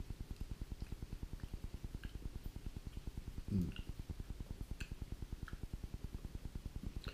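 Eating with a fork from a plastic food container: faint chewing and a scatter of light clicks of the fork, with a brief murmur of the voice about halfway through. A steady low rumble lies under it all.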